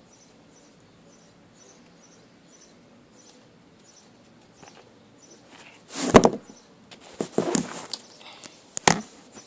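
Faint, quiet high chirping, then from about six seconds a run of loud knocks, bumps and rustling. A sharp click comes near the end. It is the phone recording the scene being knocked and handled as it slips out of place.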